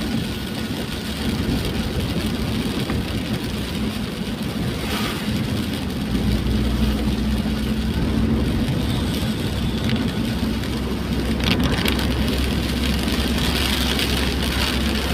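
Inside a moving vehicle in heavy rain: the engine and tyres on the wet road make a steady rumbling hiss, with rain on the windscreen. A deeper low rumble comes in about six seconds in and holds.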